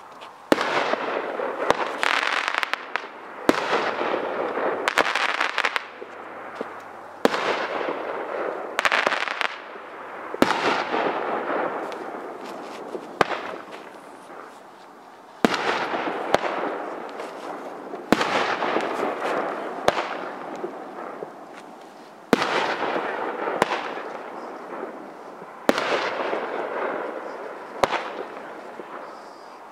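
Dominator 'Rip the Sky' 12-shot 500-gram firework cake firing. Sharp shell bursts come every one to three seconds, sometimes two close together. Each burst trails off into a long crackling, echoing tail.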